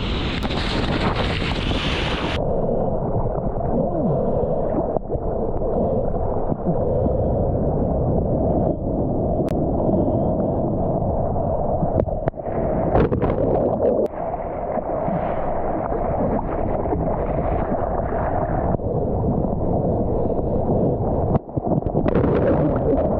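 Surf and rushing water with wind buffeting a GoPro in its waterproof housing while surfing. A bright hiss drops away about two seconds in, after which the sound is muffled, with a few sharp knocks.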